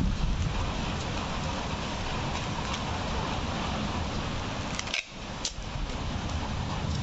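Crinkling black bubble wrap and packing tape being pulled from a handheld tape dispenser onto a parcel, a steady crackle; a sharp click about five seconds in, then a brief drop in level.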